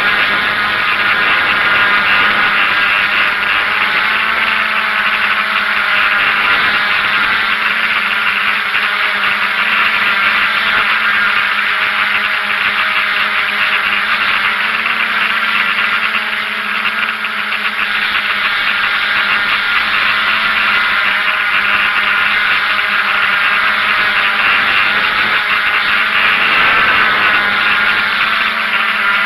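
DJI F550 hexacopter's six electric motors and propellers running steadily as it hovers, heard up close from a camera on the airframe: a loud buzzing whine whose pitches waver slightly as the motor speeds adjust.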